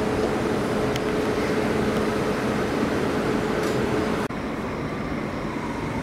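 Comboios de Portugal suburban electric train running past on a far track: steady running noise with a low electrical hum. About four seconds in the sound cuts off abruptly and gives way to quieter railway-yard noise.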